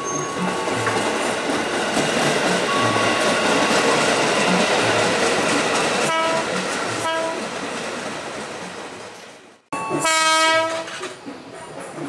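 KRL Commuter Line JR 205-series electric train passing with a steady rumble of wheels on track, giving two short horn toots about six and seven seconds in. After a sudden break, another JR 205 gives a loud horn blast lasting about a second.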